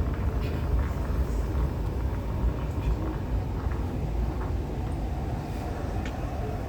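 MTR Tuen Ma Line C-Train running, a steady low rumble with faint scattered clicks; a thin steady whine comes in about five seconds in.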